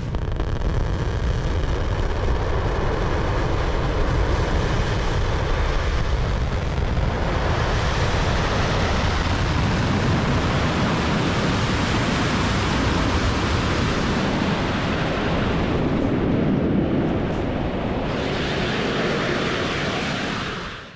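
Falcon Heavy side booster's single Merlin 1D engine firing on its landing burn, a loud continuous rocket rumble with the crackle growing harsher about seven seconds in. Heard close up, with wind on the microphone.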